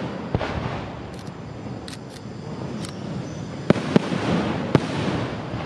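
Aerial firework shells bursting: a bang under a second in, then three sharp bangs in quick succession about four to five seconds in, each trailing off in a rolling rumble. A few faint, short high crackles sound between the bangs.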